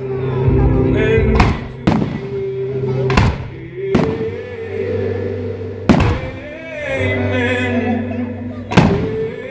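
Aerial firework shells bursting, with six sharp bangs at uneven intervals, over a music soundtrack of sustained notes.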